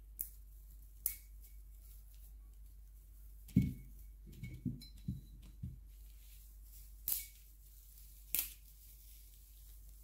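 Dried St John's wort stems crackling and rustling as they are rolled up and pushed into a glass jar, with about five sharp snaps and a few soft knocks in the middle.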